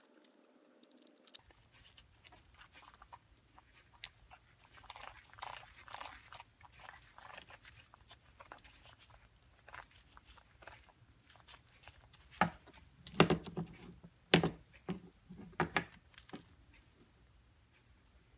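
Scattered light clicks and rattles, like small parts being handled, then several sharper knocks between about twelve and sixteen seconds in.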